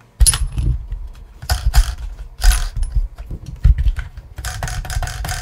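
Steering servo on a 1/18 mini crawler sweeping the front wheels back and forth, with repeated sharp clicks and clatters of the servo horn and steering links, and a steady whine from about four seconds in. It is running off the stock ESC, below its full 8.4 V.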